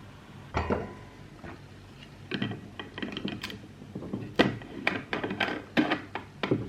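Dishes and utensils being handled: a series of light knocks and clinks, one about half a second in, then a quick irregular run of them from about two seconds on.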